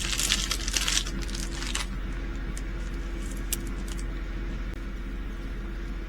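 Small resin diamond-painting drills rattling and clicking, shaken or poured in a small plastic bag, for about two seconds, then a few single clicks. A faint steady hum runs underneath.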